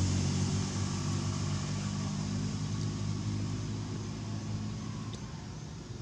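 A distant motor engine drones steadily at a low pitch, slowly fading away and dying out near the end.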